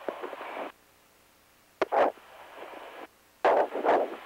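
Shuttle crew radio and intercom channel keying open and shut between calls: stretches of radio hiss alternate with dead gaps, with a sharp click just before two seconds in and a short loud burst of noise about three and a half seconds in.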